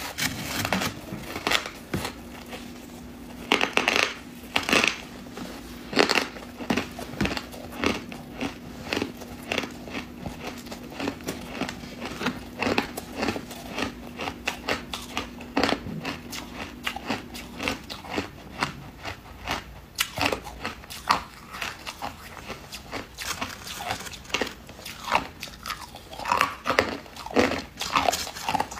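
Biting and chewing packed crushed ice: a long run of sharp, irregular crunches, several a second at times.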